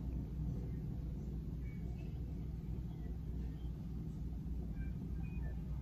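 Steady low background rumble, with no clear event standing out.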